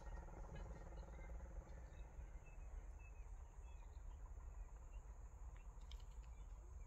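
Faint open-field ambience: a steady high insect drone and a few short, faint bird chirps over a low rumble.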